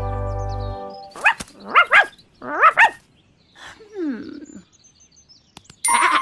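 A held music chord ends about a second in. Then a cartoon puppy voice gives several short yaps in quick pairs, followed by a falling cry. A short bright musical tone comes in near the end.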